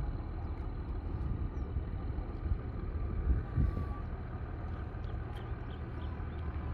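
Wind buffeting the microphone, a steady uneven low rumble.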